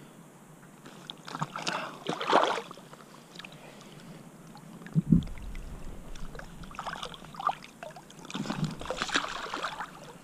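Water splashing and sloshing in irregular bursts as gloved hands and a landing net work around a cutthroat trout at the surface, with a single low thump about five seconds in.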